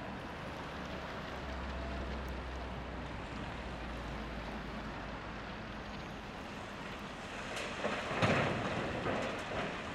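Heavy wheel loader's diesel engine running, with a deep drone as it works for a few seconds, then about 7.5 s in blasted rock pours off a side dump bucket into a steel dump truck body with loud rattling and crashing that peaks just after 8 s and trails off.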